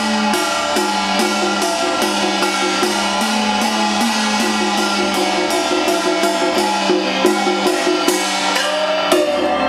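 Traditional Chinese opera-style music accompanying a marionette show: a pitched melody instrument playing over a steady beat of sharp percussion strikes.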